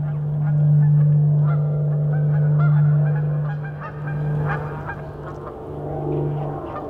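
A large flock of Canada geese honking, many short overlapping honks, over the steady low drone of a single-engine propeller plane flying overhead.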